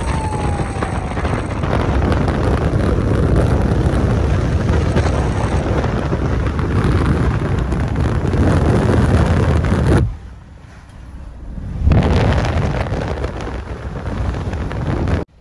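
Strong storm wind buffeting the microphone: a loud, steady rush and rumble that drops away abruptly about two-thirds of the way through and returns about two seconds later. A faint siren tone falls away at the very start.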